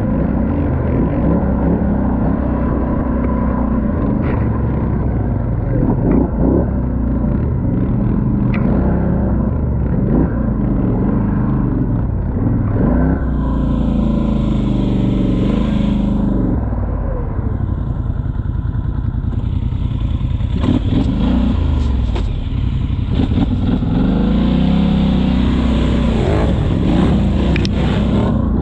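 ATV engine running through a trail ride, its pitch rising and falling with the throttle, with knocks and clatter from the machine over rough ground. A rushing hiss joins it about halfway through and again for most of the last third.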